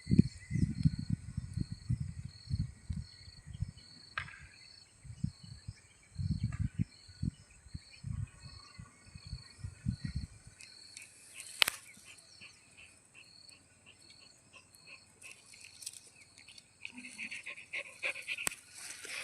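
A stick rubbed and patted against a dog's coat close to the microphone: dull, uneven low strokes that stop about ten seconds in. Behind them a high chirp pulses about twice a second, with a single sharp click after the strokes stop.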